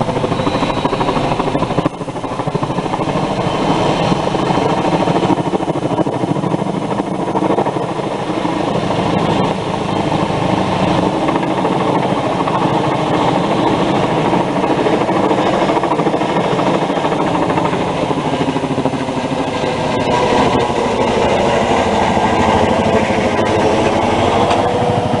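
Heavy-lift logging helicopter hovering overhead on a longline, its rotors and turbine engines making a loud, steady drone.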